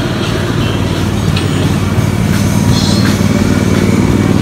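Ride-on miniature railway train rolling along its track: a steady, loud rumble of wheels on rail with a few faint clicks.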